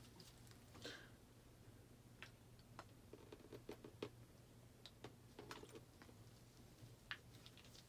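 Near silence, with faint scattered clicks and taps from gloved hands handling a plastic squeeze bottle of dye over a folded, tied shirt, above a faint steady low hum.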